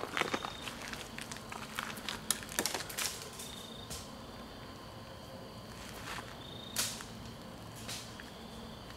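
Sparse crackles and snaps of dry leaf litter and twigs in the woods. There is a cluster in the first three seconds, then single snaps about four, seven and eight seconds in.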